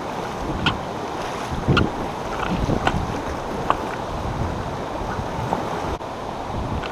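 Water moving around a kayak on a small creek, with wind on the microphone: a steady wash of noise broken by a few short splashes or knocks.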